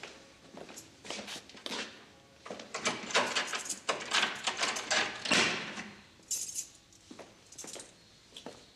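A bunch of keys rattling and a key clicking and scraping in the lock of an old wooden panelled door. The clatter comes in quick irregular clicks over the first six seconds or so, then thins to a few faint ticks.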